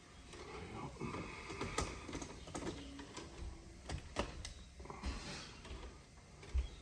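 Irregular small clicks, taps and scrapes of hand tools and wire being worked inside an electrical panel, with a few sharper clicks about two, four and six and a half seconds in.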